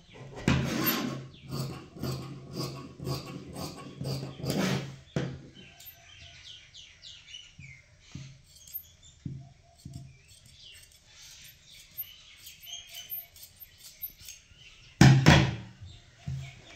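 Tailoring scissors cutting through saree cloth folded in four for the blouse sleeve: a run of rhythmic snips, about two or three a second, for the first few seconds, then a few scattered cuts. A louder knock near the end, with faint bird chirps in the background.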